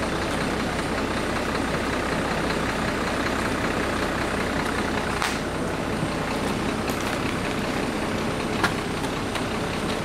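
Tour bus engine idling steadily, with a few light clicks about five and nine seconds in.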